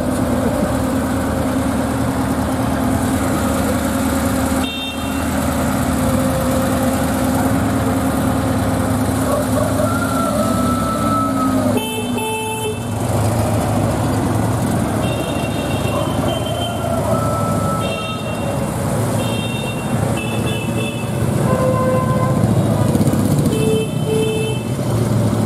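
Classic cars, among them Citroën 2CVs, driving past slowly in a column with their engines running, and several short, high-pitched horn toots scattered through.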